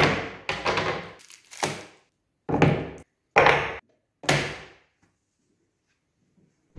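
Wooden strips, small wooden blocks, tape rolls and a VHS cassette being set down one after another on a plywood workbench: about six separate wooden knocks and clacks over the first four and a half seconds.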